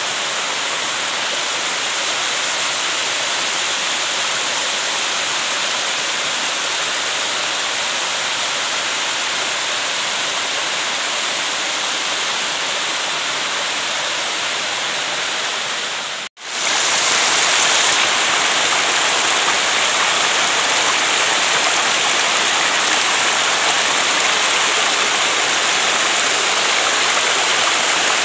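Small waterfall cascading down a stepped rock face: a steady rushing of water. It cuts out for an instant a little past halfway and comes back slightly louder.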